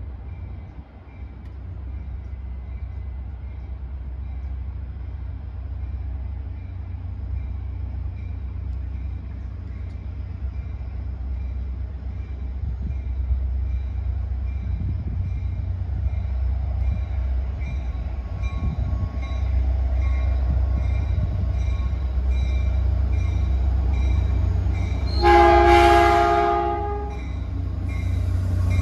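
Caltrain EMD F40PH diesel locomotive No. 900 approaching, its engine's low rumble growing steadily louder. About 25 seconds in it sounds one horn blast of about two seconds, a chord of several tones.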